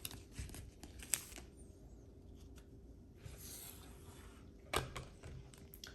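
Faint handling of trading cards: a few light clicks and taps, a brief soft sliding rustle about three seconds in, and a sharper tap a little before the end.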